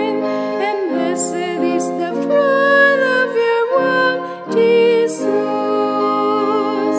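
A slow song: a singer holding long notes with vibrato over sustained keyboard chords.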